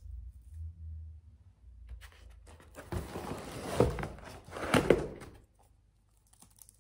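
Books and packaging being handled: rustling with a few dull thuds as one book is put away and the next is picked up, the thuds loudest about four and five seconds in.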